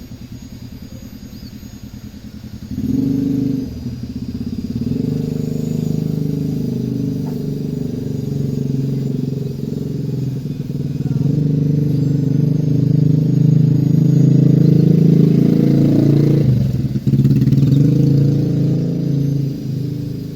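A motor vehicle engine running close by, swelling and fading, loudest in the second half with a brief dip near the end. Faint high bird calls sound over it.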